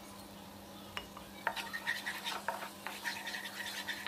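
Wooden spoon stirring and scraping thick tomato-onion masala around a nonstick frying pan. It starts with a couple of light taps, then a busy run of scrapes and knocks begins about a second and a half in.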